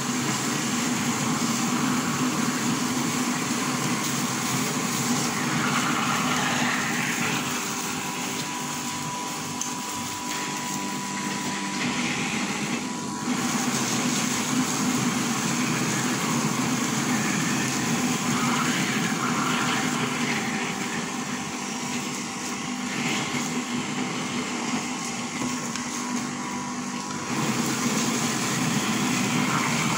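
Electric soybean grinder running steadily, its motor humming as it grinds soaked soybeans fed with water into soy milk. Near the end, water is poured into the hopper over the beans.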